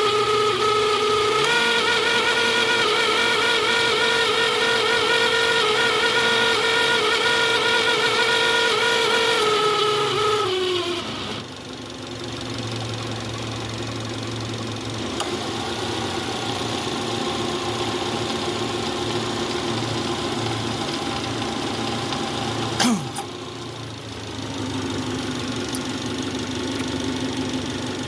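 2011 Subaru Legacy running with a loud, steady whine from its faulty A/C compressor. About ten seconds in, the whine falls in pitch and dies away, leaving the engine idling. A sharp click comes a little over twenty seconds in, and a lower hum starts soon after.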